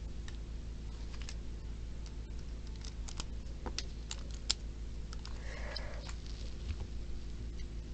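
Scattered light clicks and taps of plastic toy-train parts being handled, with a brief scrape a little past the middle, over a low steady hum.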